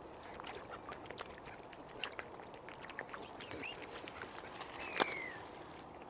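Ducks calling and feeding at the water's edge: a run of small sharp clicks and pecks, a brief chirp, then a short falling call with a sharp click about five seconds in.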